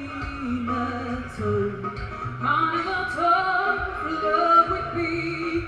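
Live song: a woman sings a melody into a handheld microphone over an acoustic guitar.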